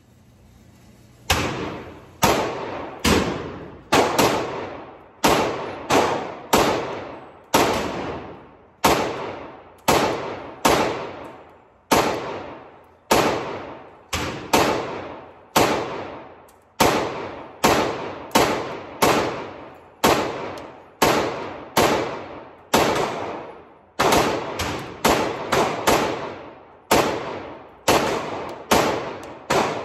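Ruger-57 pistol firing 5.7×28mm rounds in a long string of single shots, a little faster than one a second, starting about a second in. Each shot echoes and dies away in the indoor range.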